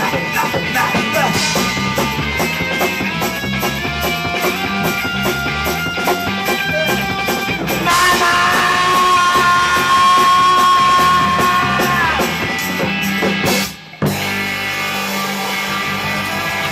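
Live blues-rock band with electric guitar, bass and drum kit playing, the cymbals keeping a steady beat. About eight seconds in, a long held note rises above the band and bends down after a few seconds. Near the end the sound cuts out for an instant, then the band carries on a little quieter.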